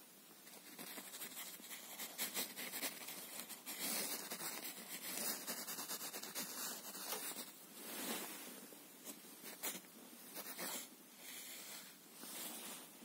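Irregular scratching and rubbing of fabric: a cloth toy mouse with a furry tail being wiggled and dragged along an upholstered sofa edge.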